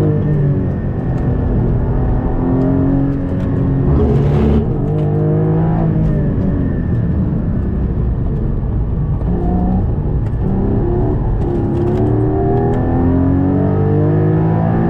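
Porsche 718 Cayman GT4's flat-six engine heard from inside the cabin, revving up hard through the gears with a rising pitch at each pull. It eases off and drops in pitch about four to six seconds in, then accelerates again in several rising sweeps.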